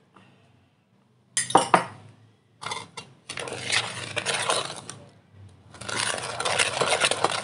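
Metal spoon stirring a gritty mix of chocolate drink powder, flour, sugar and water in a stainless steel pot. A few sharp clinks of spoon on metal come about a second and a half in, then a continuous scraping against the pot's bottom and sides, with a brief pause around five seconds in.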